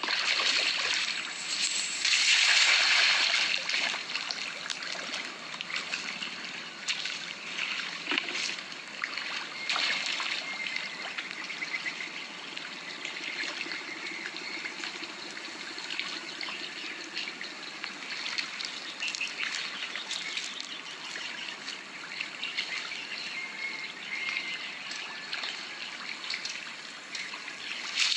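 Water trickling and splashing steadily, with a louder splashing swell about two to four seconds in.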